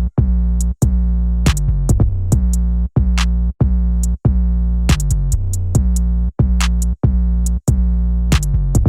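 Electronic music with a drum-machine beat: heavy sustained bass notes cut by short regular gaps, and sharp hits on the beat.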